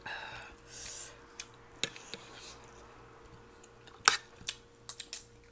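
Metal spoon and fork clinking and scraping on ceramic plates while eating: a few sharp clinks spread out, then a quick cluster of them near the end.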